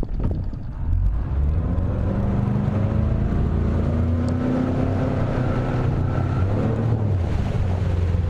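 Boat outboard motor running under way, its pitch rising over the first few seconds as it speeds up, with wind buffeting the microphone.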